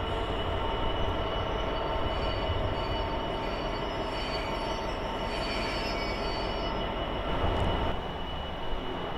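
A GB Railfreight Class 66 diesel locomotive's two-stroke V12 engine runs steadily as it hauls a passenger train through the station, with a faint high squeal in the middle. The sound dips and changes about eight seconds in.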